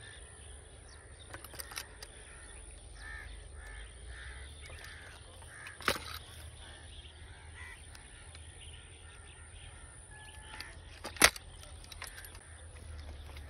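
Side-by-side double-barrel shotgun being broken open and snapped shut: a sharp metallic click about six seconds in as the action opens, and a louder clack about eleven seconds in as it closes.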